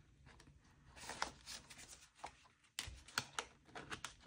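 Faint rustling of paper banknotes and a cash envelope being handled, with sharper paper flicks and clicks coming more often in the second half.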